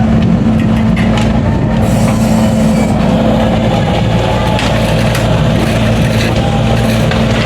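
Heavy construction machine's diesel engine running steadily, with rough scraping and clattering over its hum, as road surface is being broken up and moved.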